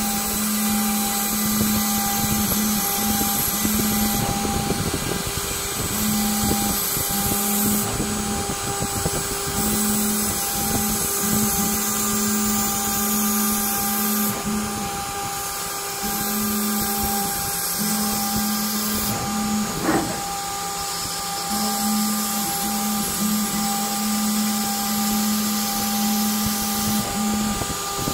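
A DIY CNC router running, its spindle turning steadily while a fine bit cuts glider ribs from 3 mm balsa sheet. A lower hum starts and stops every second or two as the machine moves along the cuts, and there is one short click about twenty seconds in.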